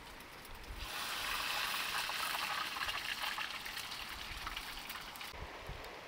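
Steady rain hissing, setting in abruptly about a second in and dropping back shortly before the end.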